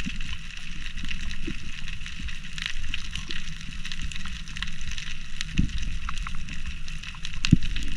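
Underwater ambience picked up by a camera in its waterproof housing: a steady scatter of faint crackling clicks over a low rumble, with two dull thumps, about five and a half and seven and a half seconds in.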